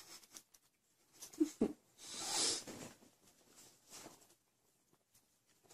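Close-up breathy sniffs and small wet clicks from a ginger cat sniffing and licking a sleeping person's face, with a short low sound about a second and a half in.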